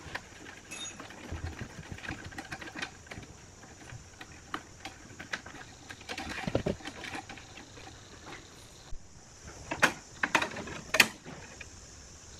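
Small irregular clicks, scrapes and metallic taps of a screwdriver and hands working on a steel amplifier chassis while a front-panel connector is unscrewed and its wires are pulled out through the panel, with a few sharper knocks near the end.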